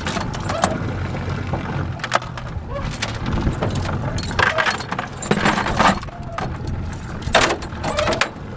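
Steel trap chains jangling and clinking as they are handled in an aluminum boat, a string of irregular sharp metallic clicks and knocks, loudest around the middle and near the end.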